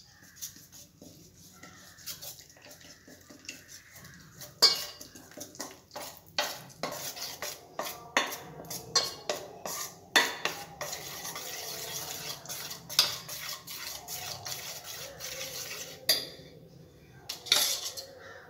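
Steel spoon stirring flour and water into batter in a stainless steel bowl, clinking irregularly and repeatedly against the bowl, with a wet stirring sound as the batter thickens.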